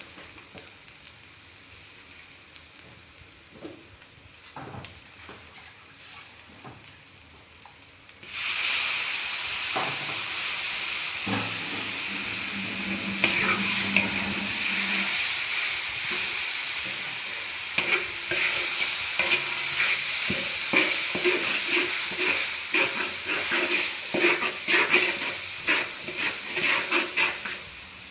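Food frying in a large wok (kuali): quiet scraping at first, then a loud sizzle starts suddenly about eight seconds in and carries on under repeated spatula stirring and scraping strokes, coming faster near the end.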